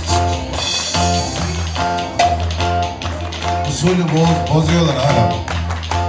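Live Turkish folk dance music from a band with keyboard and a plucked string instrument, with a pair of wooden spoons clicked in time with the beat by the dancer.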